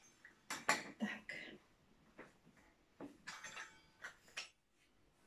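Faint, scattered handling noises of dough being cut into strips with a hand cutter on a floured board: a few short scrapes and taps with quiet gaps between.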